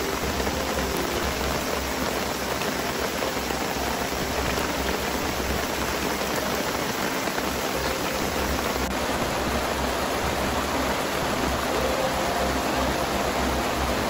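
Heavy downpour: rain pouring steadily as an even hiss.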